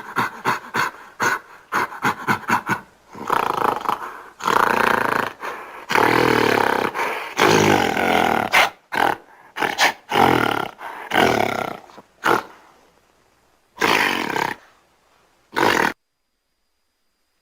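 Gorilla roar sound effects: a quick run of short grunts, then several long, loud roars, then two shorter roars, stopping about a second and a half before the end.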